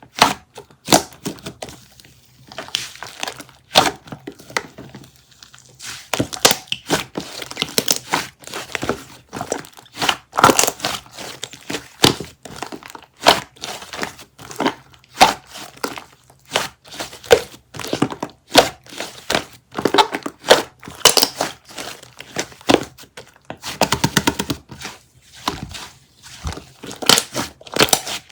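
Close-up crinkling and crackling of a crinkly material being squeezed and handled over and over. The sharp crackles come several times a second, with a brief rustle about three-quarters of the way through.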